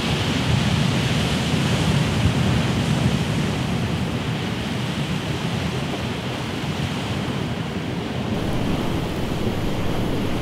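Steady wash of sea surf and wind along a rocky shore, an even noise with no distinct events.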